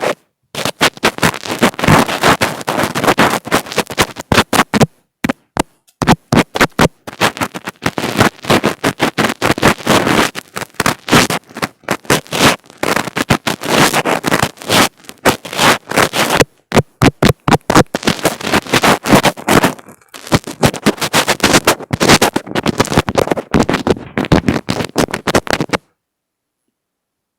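Fingers rubbing, scratching and tapping directly on an earphone microphone, close and loud: a dense run of quick crackling strokes with brief pauses, cutting out suddenly near the end.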